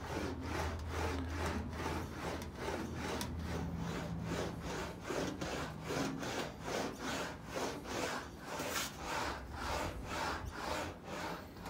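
Aluminium sheet being rolled back and forth through an English wheel, a rhythmic rubbing swish with each pass as the metal is stretched between the wheels. The strokes come quickly and evenly, several a second.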